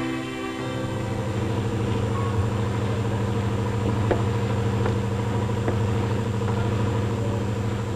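Fishing ship's engine running with a steady low drone, as music fades out in the first half second.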